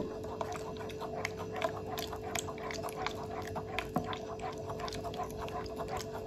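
A spatula stirring foamy liquid soap mixture in a stainless steel bowl: wet sloshing with many quick, irregular clicks and scrapes of the spatula against the bowl. A steady faint hum runs underneath.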